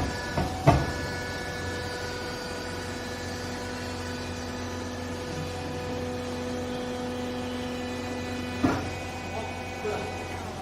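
Hydraulic baler running, a steady hum from its motor and pump, with a few sharp metal clanks near the start and again late on.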